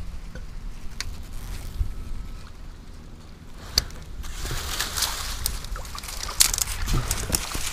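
Steady low wind rumble on the microphone, then from about four seconds in tall reeds and grass rustling and crackling as they brush against the kayak.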